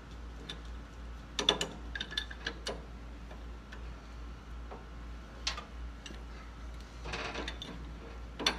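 Pipe wrench gripping and turning a hydraulic cylinder's gland nut, giving irregular metallic clicks and short scrapes in a few clusters.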